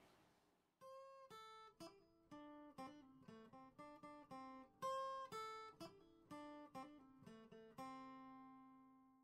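Quiet outro music: guitar picking a slow run of single notes and chords, starting about a second in and ending on a last chord that rings and fades away.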